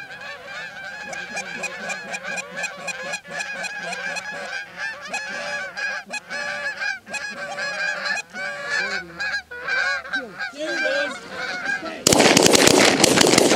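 A flock of Canada geese honking, many calls overlapping. About twelve seconds in, a sudden loud volley of shotgun fire breaks out.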